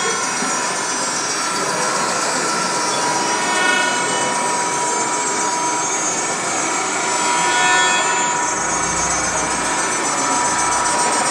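Live noise-music performance: a loud, unbroken wall of distorted noise with a steady high tone running through it. A deep rumble joins about eight seconds in.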